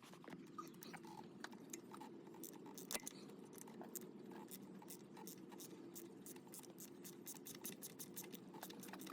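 Faint, rapid clicking and small metal taps of hand tools working the bolts near an engine's thermostat housing, at about four or five clicks a second in the second half, over a low steady hum.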